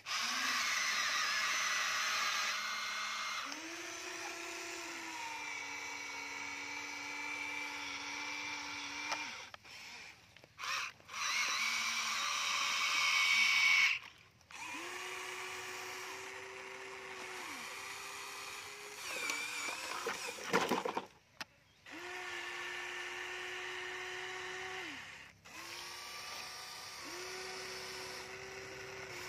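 Huina radio-controlled toy excavator's electric motors and gears whining in runs of a few seconds as the arm, bucket and tracks move, each run holding a steady pitch, with short pauses between. About two-thirds of the way through the pitch shifts about and there are a few sharp knocks.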